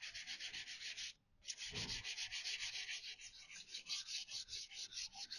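Scotch-Brite abrasive pad rubbed by hand in quick back-and-forth strokes over the primed steel body panel of a VW T25 van, about seven strokes a second, rubbing the primer down. The strokes break off briefly about a second in, with a dull knock as they resume.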